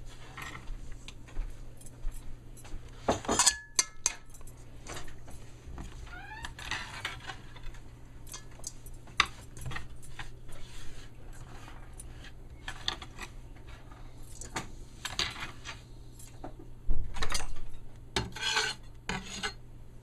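Kitchen utensils clinking and scraping against dishes and a bowl as chopped seasonings are scraped into ground beef. The taps come at irregular intervals, with one short ringing clink a few seconds in and a louder stretch of handling near the end.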